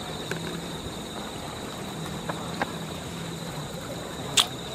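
Outdoor background ambience: a steady hiss with a constant high whine, a few faint ticks and one sharp click near the end.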